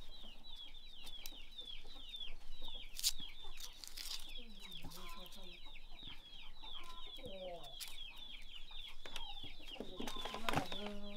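Chickens clucking, with a steady fast run of short high chirps over them, about four or five a second, and a few sharp clicks.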